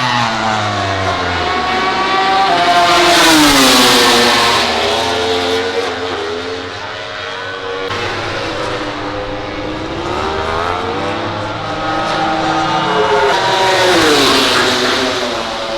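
MotoGP racing motorcycles' four-cylinder prototype engines going past at high revs. There are two fly-bys, one about three to four seconds in and one near the end, and each engine's pitch drops as it passes.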